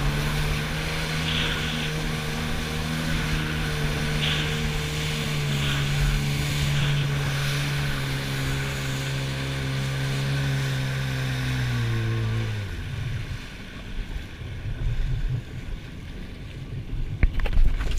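Jet ski engine running steadily, its pitch sagging a little before it stops about twelve and a half seconds in. After that, irregular water splashes and slaps close to the microphone.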